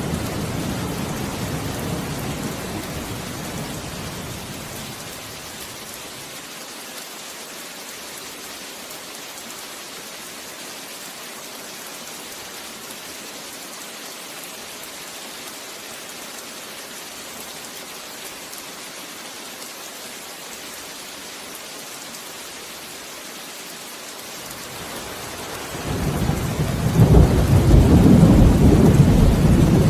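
Steady heavy rain with rolling thunder: a deep rumble fades away over the first few seconds, leaving only the hiss of rain, and a loud new peal of thunder builds up about four seconds before the end.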